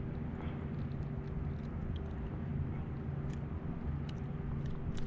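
A steady low mechanical hum holding several fixed pitches, with a few faint short clicks.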